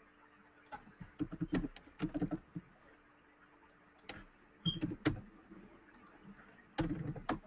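Computer keyboard typing in three short bursts of key clicks.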